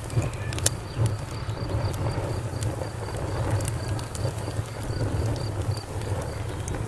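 Wood fire crackling with sharp pops and snaps over a steady low rumble of the flames. A cricket chirps faintly and evenly behind it, about three chirps a second.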